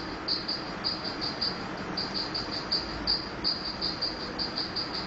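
High-pitched insect chirping, short chirps at about four to five a second, over a steady hiss.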